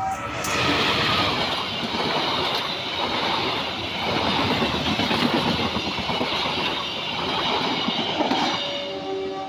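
A diesel-hauled passenger train passes close by: the locomotive, then a string of coaches, with a loud steady rattle of wheels on the rails. The level-crossing alarm's electronic tones fade under the train noise at the start and come back as the last coach clears, about nine seconds in.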